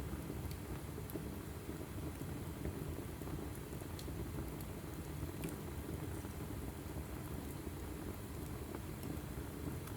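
Log fire burning in a fireplace: a steady low rushing of the flames with scattered sharp crackles and pops of the burning wood.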